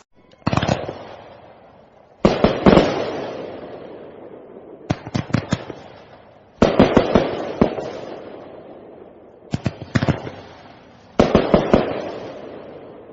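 Aerial fireworks bursting overhead: about six volleys of sharp bangs and crackles, a second or two apart, each followed by a long fading rumble.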